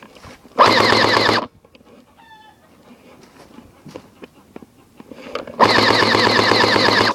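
Airsoft gun firing two full-auto bursts: a short one of about a second just after the start and a longer one of about a second and a half near the end.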